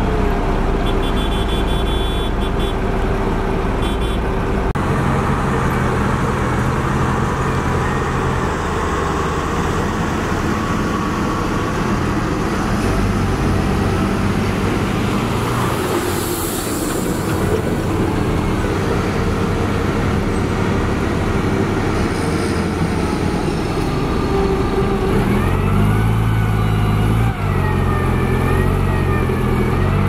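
Diesel engines of heavy road-building machines running steadily: a Liugong single-drum road roller, then a Komatsu GD655 motor grader. The low engine hum shifts in character a few times.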